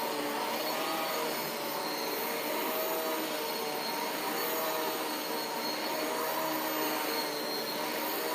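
Riccar upright vacuum cleaner running steadily on carpet, a high thin whine over its motor hum, while it is pushed back and forth picking up dog hair.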